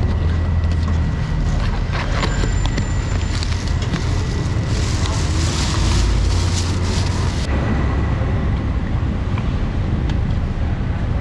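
Busy street-market noise: a steady low rumble with scattered knocks and clicks, and a hiss that swells for a few seconds in the middle.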